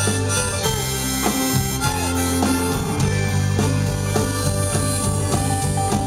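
Live rock band with electric guitar and drums, and a harmonica played by the singer with his hands cupped around the vocal microphone.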